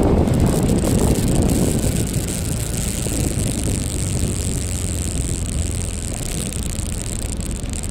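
Wind rushing over the microphone with road and vehicle noise while riding a two-wheeler along an asphalt road: a steady rumble with a high hiss, loudest in the first second or so and then easing a little.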